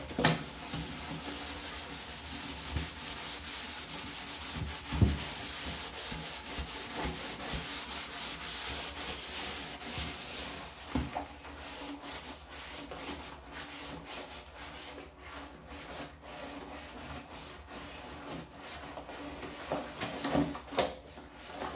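A rubber-gloved hand scrubbing the soapy inside of a plastic garbage can: a continuous rough rubbing made of quick strokes, broken by a few sharp knocks.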